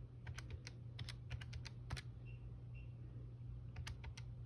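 Keys of a handheld calculator being pressed: a run of light, irregular clicks, several a second, as a sum is keyed in.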